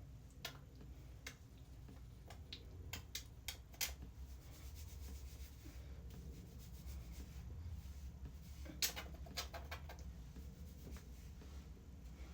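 Faint rubbing and scattered small clicks of hands working oil through hair, over a low steady hum.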